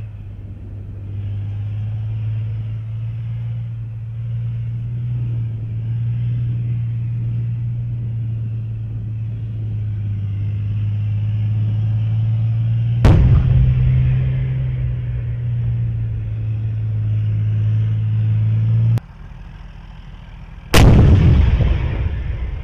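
Leopard 2 tank driving, its engine a steady low drone, with a cannon shot a little past halfway. After a sudden cut, a Leopard 2's 120 mm main gun fires once near the end, the loudest sound, with a blast that dies away over a second or two.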